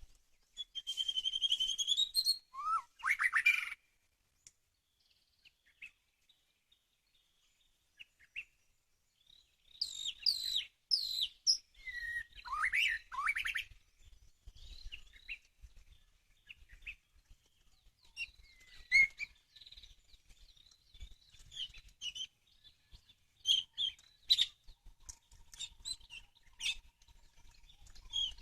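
White-rumped shama (murai batu) song played as a bird-lure: two loud bursts of rich whistled phrases sweeping up and down in pitch, with a quiet gap between, then a long run of short, scattered chirps and call notes.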